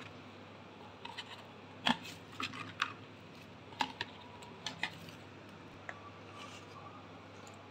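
Eggs lifted out of a plastic egg tray and set into a bowl: faint, light clicks and taps of eggshell against plastic, scattered irregularly, now single, now in quick little clusters.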